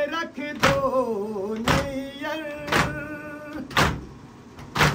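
A voice chanting a nauha lament while mourners beat their chests in unison, five sharp slaps about a second apart. The chanting stops about three and a half seconds in, and the beats keep time.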